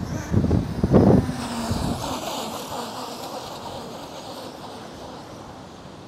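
Wind buffeting the microphone with low rumbling gusts for about the first second. Then the hiss of surf washing over the flat, wet beach, slowly fading.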